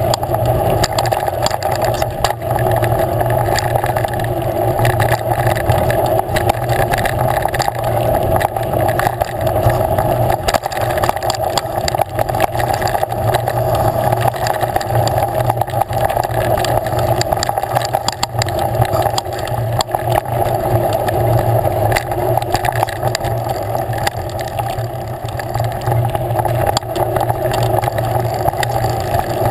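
A vehicle riding a rough dirt trail, heard from a camera mounted on it: a steady drone with frequent clatters and knocks from the bumps.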